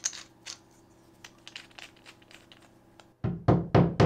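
Light clicks and taps as a small wooden wall peg and its fitting are handled, then, near the end, a quick run of hammer blows, about four a second, tapping a fixing into drywall.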